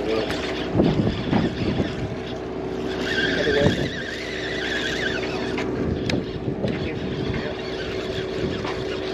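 Sportfishing boat's engine humming steadily, with several sharp knocks and clatter in the first few seconds and a high squeal from about three to five seconds in.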